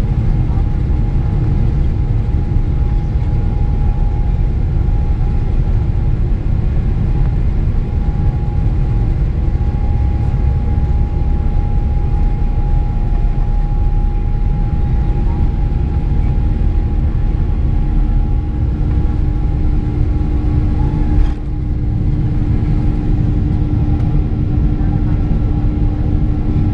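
General Electric GE90 turbofan engines of a Boeing 777-300ER at takeoff thrust, heard from inside the cabin over the wing: a loud, steady low rumble with a held whine through the takeoff roll and liftoff. A second, lower whine joins about two-thirds of the way through, and there is one brief knock soon after.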